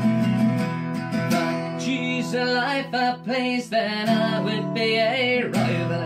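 Background music: strummed acoustic guitar, with a wavering melody line over it from about a second and a half in.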